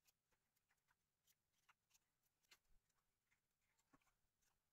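Near silence, with a few very faint short ticks.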